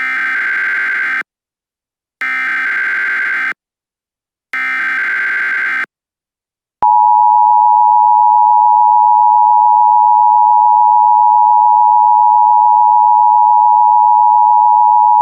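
Emergency Alert System SAME header: three bursts of digital data warble, each about a second and a half long with a short gap between them. About a second after the third burst, the EAS two-tone attention signal starts and holds a steady, loud alarm tone.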